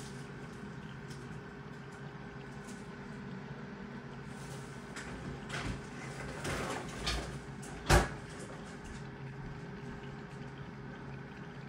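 Steady hum of aquarium equipment, with a few rustling handling noises and one sharp knock about eight seconds in.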